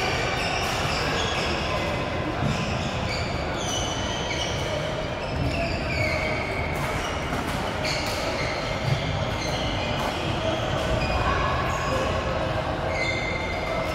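Shoes squeaking sharply on a sports-hall court, many short squeals, some sliding down in pitch, with sharp taps of rackets hitting a shuttlecock in badminton play. All of it rides over the steady din of a large hall.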